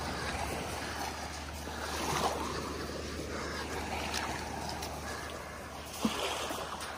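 Small waves lapping and washing on a sandy shore, swelling twice, about two seconds in and near the end, over a steady low rumble of wind on the microphone.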